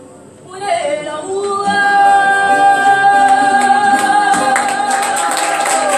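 A woman fado singer comes in after a short pause with a brief slide up and then holds one long, steady closing note of the song over plucked guitar accompaniment.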